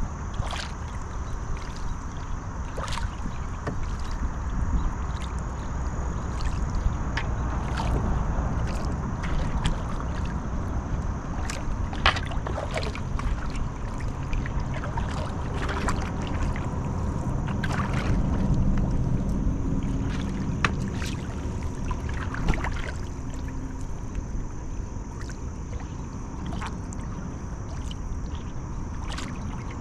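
Sea kayak being paddled: irregular splashes and drips as the paddle blades dip and lift from the water, over a steady low rumble.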